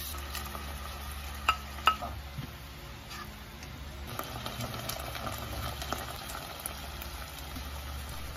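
Chopped chicken and onions sizzling in hot oil in a pot as annatto water is added and stirred in with a plastic spatula, with two sharp clicks about 1.5 and 2 seconds in. A steady low hum runs underneath.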